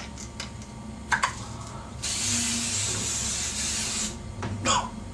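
Aerosol hairspray can spraying in one steady hiss of about two seconds, a couple of seconds in, with a few short handling clicks before and after.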